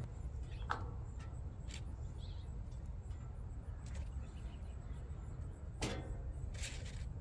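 A few light clicks and taps as crisp bacon strips are set down on a cheese-topped croissant sandwich on a wooden cutting board, over a low steady rumble.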